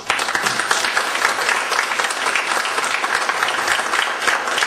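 A conference audience applauding at the end of a talk: many hands clapping, starting suddenly and holding steady throughout.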